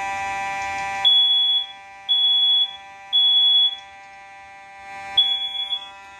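First Alert smoke detector sounding its alarm: three short, high, piercing beeps about a second apart, a pause, then the next beep starting the cycle again. A steady buzzing multi-tone sound is cut off about a second in and returns near the end.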